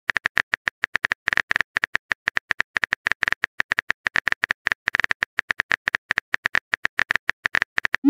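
Phone keyboard typing sound effect: a rapid stream of short clicks, about eight a second, one for each letter typed into a text-message box.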